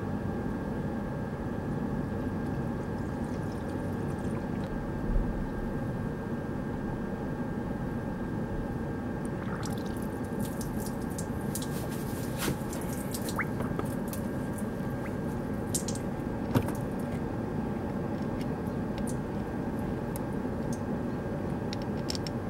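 Steady hum of a BMW 528i's heater blower fan running on high, with green coolant pouring and dripping into the radiator filler neck while the cooling system is bled. Scattered small clicks and splashes come through about halfway through.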